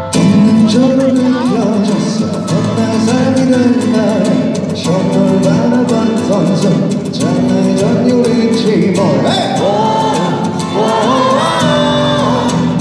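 Live acoustic guitar strummed with a voice singing a melody over it.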